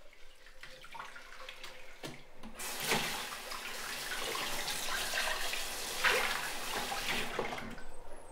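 Kitchen sink faucet running into the sink during hand dish-washing. It comes on about two and a half seconds in and shuts off near the end. There are a few knocks of dishes against the sink before and while it runs.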